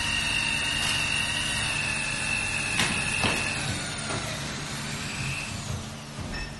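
200 W jewelry spot laser welding machine running its start-up self-check, its water cooling running: a steady hum with a high whine. Two sharp clicks come about three seconds in, the whine stops soon after as the self-check finishes, and the noise drops near the end.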